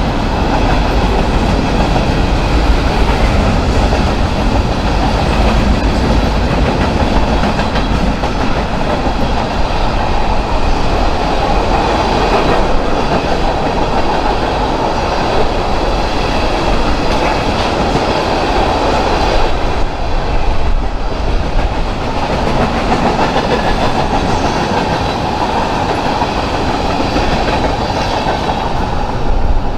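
Railroad cars rolling past close by, steel wheels clicking over the rail joints under a continuous loud rumble, with a faint high ringing of wheels on rail.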